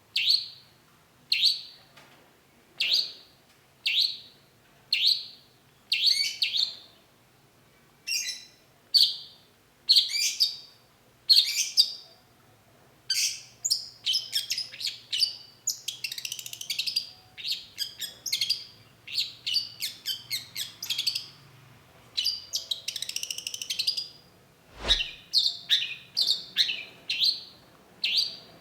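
Long-tailed shrike calling: short, separate calls about once a second, then a faster run of chattering notes broken by two rasping stretches. A single sharp knock sounds about three-quarters of the way through.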